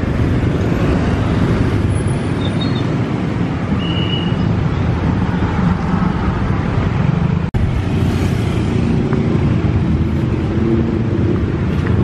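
Steady road traffic noise, a continuous low rumble of passing vehicles, broken by a momentary dropout about seven and a half seconds in.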